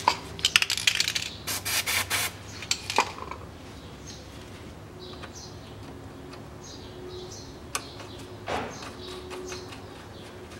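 Small steel nuts and suspension hardware clink and rattle as they are handled for the first three seconds or so. Quieter hand work follows as a nut is started by hand on the ATV's steering tie-rod end, with one knock near the end.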